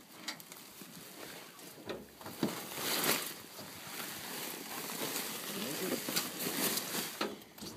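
Plastic tarp rustling and crackling as a load of grass clippings is tipped off it into a bin, with louder crinkles about two to three seconds in.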